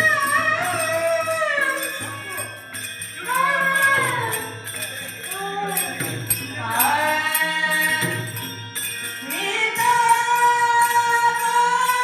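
Bhajan singing: a solo voice gliding through ornamented phrases and holding a long note near the end, over jingling metal percussion.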